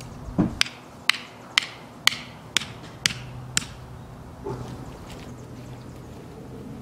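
A hammer driving a garden stake into the soil: seven sharp knocks at about two a second, which stop about three and a half seconds in.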